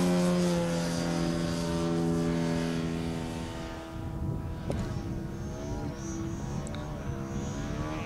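Turnigy Rotomax 50cc electric motor and propeller of a radio-controlled Pitts Special biplane flying overhead, giving a strong, steady pitched drone. About four seconds in, the motor is throttled back and the drone fades, leaving a fainter tone that wavers in pitch over low noise.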